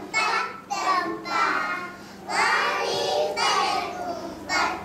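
A group of young children singing a rhyme together on stage, in short sung phrases with brief pauses between them.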